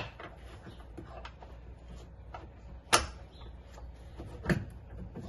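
Scattered clicks and light knocks of seat-harness straps and their hardware being worked against the UTV's plastic seat surround and trim. A sharp click about three seconds in is the loudest, and a duller knock follows about a second and a half later.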